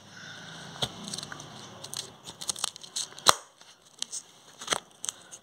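Close handling noise as a phone is moved and propped against a clipboard: rustling and scraping with a few sharp knocks, the loudest about three seconds in.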